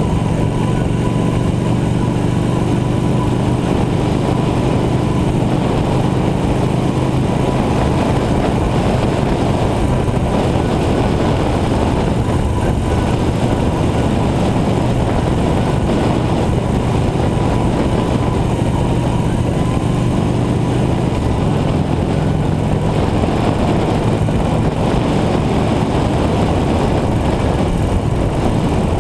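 Touring motorcycle engine running steadily at road speed, with wind noise rushing over the microphone. The engine note shifts slightly about two-thirds of the way through.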